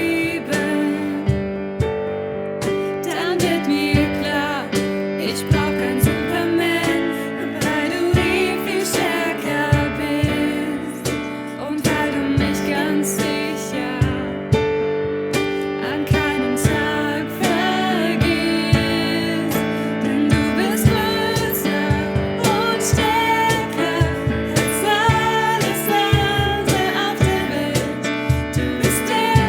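German Christian pop song playing, with a steady drum beat, accompaniment and singing.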